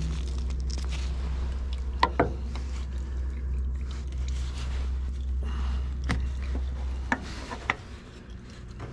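Hands screwing a spin-on oil filter onto an RV generator's oil filter mount: rubbing and handling noise with a few sharp clicks, over a low steady hum that drops away about seven seconds in.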